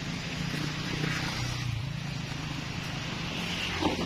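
Steady low hum of an idling car engine under a wash of background noise.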